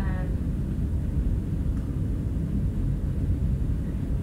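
Steady low rumble of classroom background noise, with a brief bit of voice right at the start.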